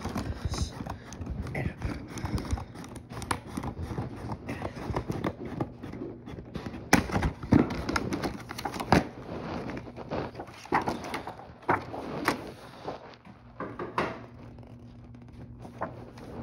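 Cardboard box and plastic packaging being opened and handled by hand: irregular clicks, taps and rustling, with a few sharper clicks around the middle.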